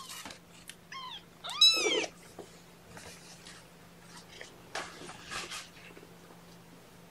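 Kitten meowing twice: a short, high call about a second in, then a louder one that rises and falls. After that come faint rustles and light taps.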